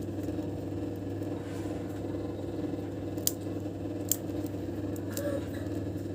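A steady low mechanical hum with two sharp clicks, about three and four seconds in.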